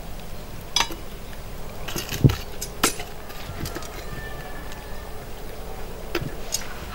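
Wood fire crackling under a cooking pot, with scattered sharp pops and clicks and a dull thump a little over two seconds in.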